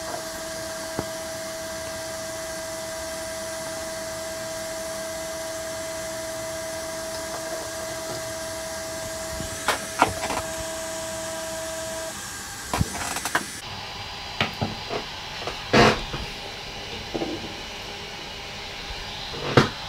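Prusa i3 MK2S 3D printer loading filament: the extruder's stepper motor whines at one steady pitch over a constant hiss for about twelve seconds as it feeds filament through the hot end, then stops. A few sharp clicks and knocks follow.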